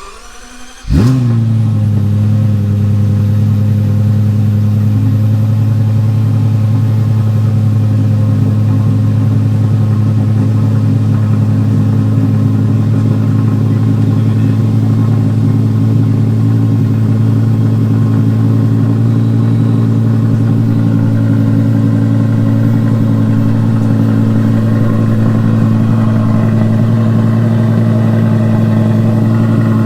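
Lexus LFA V10 being started: a brief crank, then the engine catches about a second in with a short flare and settles into a loud, steady idle.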